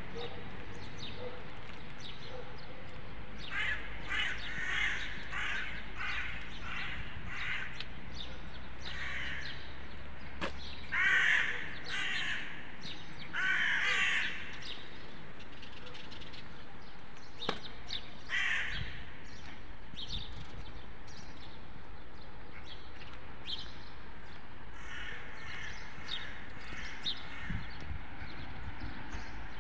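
Crows cawing, a run of separate calls with pauses between them, the loudest about eleven and fourteen seconds in, then more scattered calls later on.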